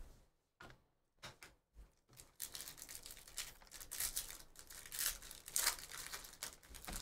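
A few light handling clicks, then, from about two and a half seconds in, the wrapper of an Upper Deck hockey card pack crinkling and tearing as it is ripped open.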